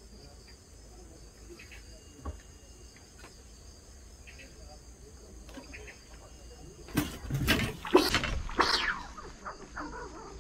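Crickets chirping steadily. About seven seconds in, a loud two-second flurry of knocks and rustling cuts across it.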